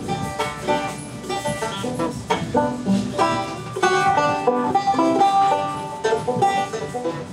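Background music in a bluegrass style, with quick plucked string notes.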